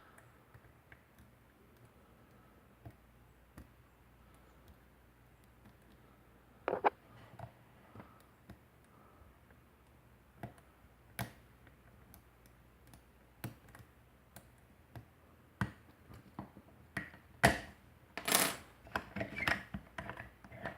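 Lock pick and tension wrench working the wafers of a Slaymaker wafer padlock: faint, scattered small metal clicks and scrapes, growing busier and louder in the last few seconds as the linked padlocks clink against each other.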